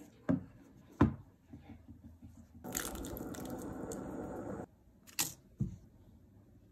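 Two sharp clicks early on, from the plastic peppercorn grinder and whole peppercorns being handled on a hard surface. Then about two seconds of steady hiss from a pot of water heating on a gas burner turned to max, followed by a couple more light clicks.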